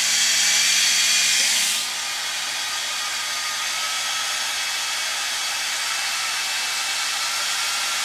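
Hair dryer fan motor and impeller running on a DC bench supply as its voltage is turned up, with a steady rush of air and a faint motor whine. The sound shifts and gets slightly quieter about two seconds in.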